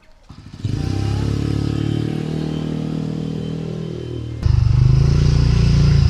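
A motor running with a steady low hum. About four and a half seconds in it switches abruptly to a louder, lower, pulsing sound.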